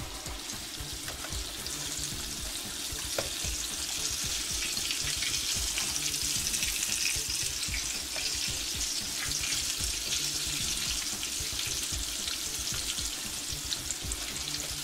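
Chicken wings frying in hot oil in a cast-iron skillet: a steady sizzle with a few small pops.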